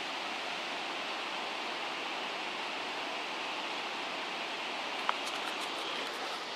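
Steady rush of water spilling over a small rocky waterfall into a pool. A single sharp click sounds about five seconds in.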